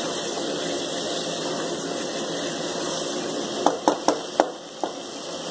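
Chicken and potatoes being stirred with a wooden spoon in a pot of frying masala, under a steady hiss. About two-thirds of the way in, the spoon knocks sharply against the pot about five times in quick succession.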